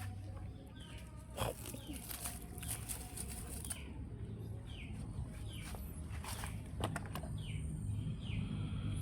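A small bird chirping repeatedly outdoors, about one short curved chirp a second, with a few faint clicks or rustles.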